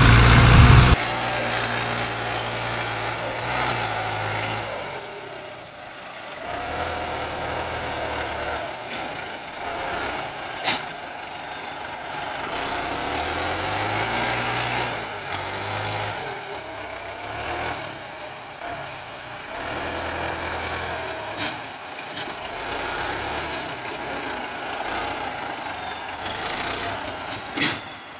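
Farm tractor's diesel engine working under load, its pitch rising and falling as the throttle changes. There are three short sharp knocks.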